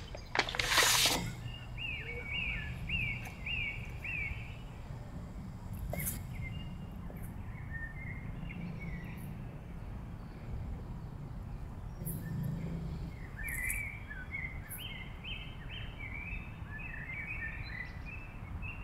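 Birds chirping in short descending runs of notes, twice in longer series, over a steady low outdoor background rumble. A brief sharp rustle about a second in is the loudest sound.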